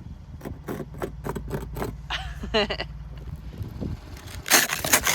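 Icy crusted snow crackling and crunching underfoot or under tyres, with a vehicle engine running low beneath it until about three and a half seconds in; the crunching turns loud near the end.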